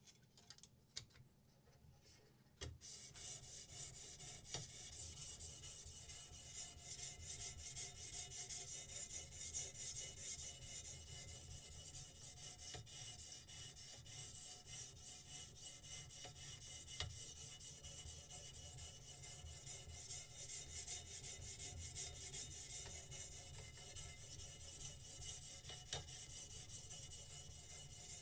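A knife blade being sharpened on a sharpening stone: a steady rasping scrape that starts about two and a half seconds in, after a few light clicks, and keeps going.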